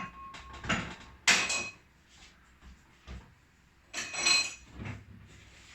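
Kitchenware being handled: separate knocks and clinks, the loudest about a second and a half and four seconds in, some with a short metallic ring.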